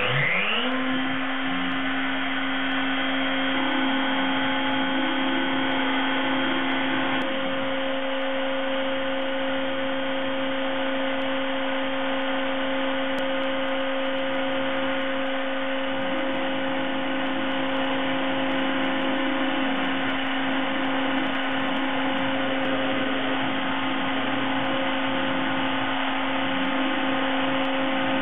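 CNC mill spindle spinning up with a rising whine, then running at a steady pitch as a thin ball-nose cutter makes the finishing pass on the foam workpiece turning on the rotary axis.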